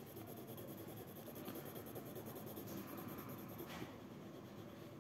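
Coloured pencil rubbing quickly back and forth on paper as a word box is coloured in: a faint, steady scratching.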